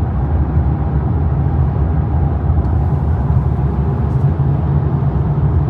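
Steady low road and tyre rumble inside the cabin of a Polestar 2 electric car cruising at about 100 km/h on 20-inch wheels with Continental tyres, measured at around 75 dB.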